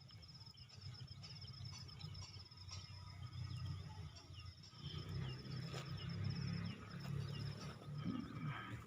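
Outdoor ambience of insects trilling in a steady, rapidly pulsing high chirr, with scattered short bird chirps and a low rumble underneath that grows louder about halfway through.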